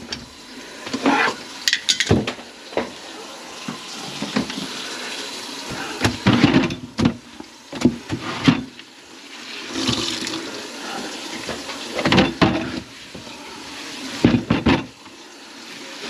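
Water running into a kitchen sink, with repeated knocks and clatter over it.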